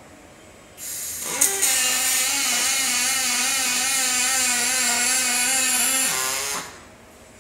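Robotic MIG welder welding aluminium: a hiss starts under a second in, the arc strikes with a couple of sharp cracks, then buzzes steadily at one pitch with a high hiss for about five seconds before cutting off.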